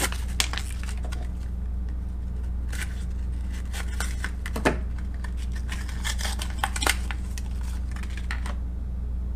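Paper-card and plastic blister packaging of a fishing swim jig being torn open and handled: tearing, crinkling and scattered sharp clicks as the lure is pulled free, over a steady low hum.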